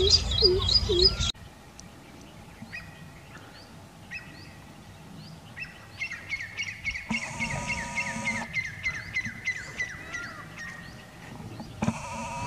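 Small birds chirping: a quick run of repeated high chirps over a low rumble, cut off about a second in, then scattered chirps and, from about halfway, a long run of rapid repeated falling chirps. Two brief, louder, steady-pitched calls break in around the middle and again near the end.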